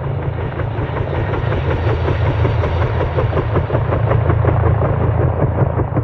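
Helicopter flying overhead, the rapid beating of its rotor blades over a steady low engine sound, gradually growing louder.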